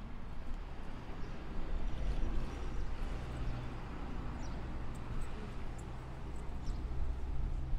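Low, steady hum of a motor vehicle's engine in street traffic, growing louder about two seconds in.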